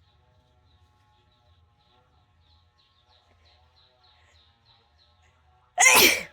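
A single loud sneeze near the end, a short explosive burst lasting about half a second. Before it, faint bird chirps repeat over a low hum.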